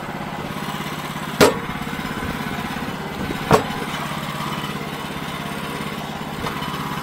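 A small engine runs steadily throughout, with two sharp knocks about two seconds apart, the first a little over a second in.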